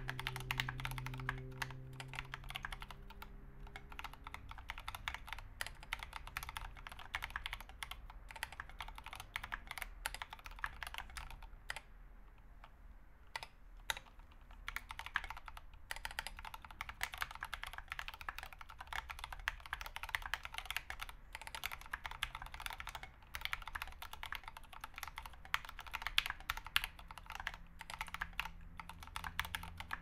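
Fast typing on an Idobao ID80 mechanical keyboard fitted with Krytox 205g0-lubed Turquoise Tealio 65g linear switches and SA-profile ABS keycaps: a dense, irregular clatter of keystrokes. The keystrokes thin out briefly about twelve seconds in.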